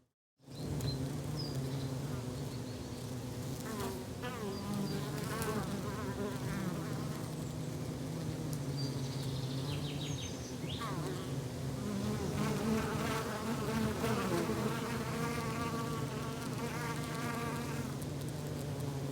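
A flying insect buzzing steadily close by, with a droning tone. Birds chirp and trill over it from about four seconds in. The sound drops out for a fraction of a second at the very start.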